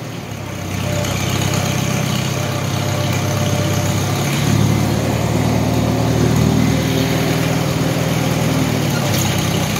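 Farmall H tractor's four-cylinder gasoline engine running at low speed, getting louder about a second in and again a few seconds later.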